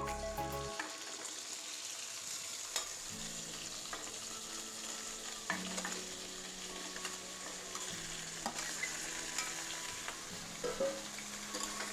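Cut okra sizzling as it sautés in a pan, with a steady hiss and a few light knocks from stirring.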